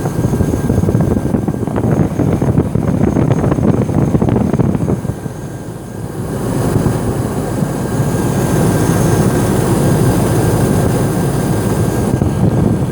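Hummer H2's 6.0 L GM V8 running with a newly fitted alternator: a loud exhaust rumble and no knocking from the alternator, which had been making a knock-like noise from its broken shaft before it was replaced.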